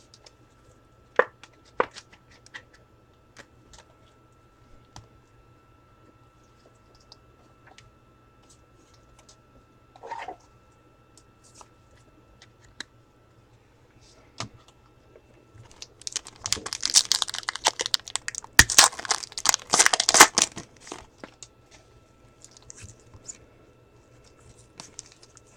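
Foil wrapper of a trading-card pack being torn open and crinkled: a dense crackling that lasts about five seconds, starting about two-thirds of the way in, after a few light scattered clicks.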